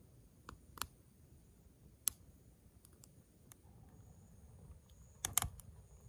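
Firewood burning in a campfire, giving a few sharp, separate pops and crackles, the loudest a quick pair of pops near the end.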